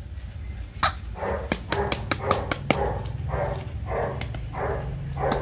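Young Rottweiler puppies at play with toys, making a run of short rough sounds about two a second, starting about a second in, with light clicks and taps among them.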